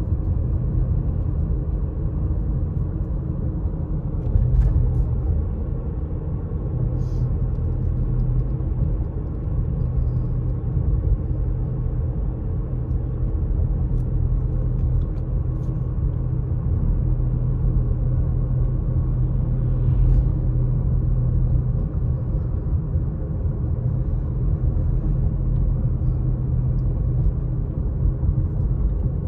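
Steady low rumble of a car driving along a wet paved road: engine and tyre noise, with a brief bump about four seconds in.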